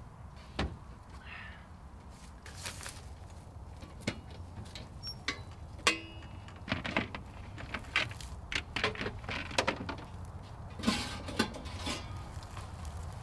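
Scattered clicks, knocks and light clatters of items being handled and set down in a metal ute canopy's storage compartment, with a denser clatter near the end.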